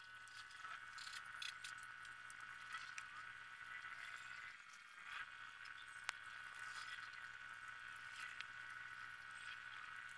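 Faint, irregular scratchy strokes of a crayon colouring on paper, over a steady high-pitched hum. A single sharp click about six seconds in.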